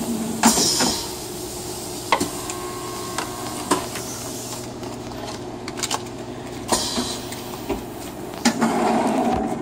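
Paper cards and plastic blister shells being handled, with scattered clicks, knocks and rustling bursts. Under it runs a steady machine hum from the blister heat-sealing press.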